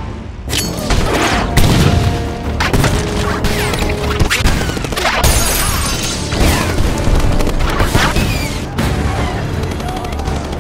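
Action-film explosion sound effects: a series of booms and crashing debris mixed over a music score.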